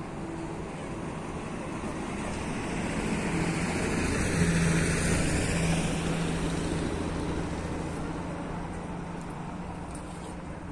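A road vehicle driving past: engine hum and tyre noise grow louder, peak about four to five seconds in, then fade away.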